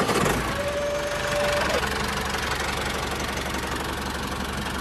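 Tractor engine running steadily with a knocking chug. About half a second in, a thin steady tone sounds for about a second.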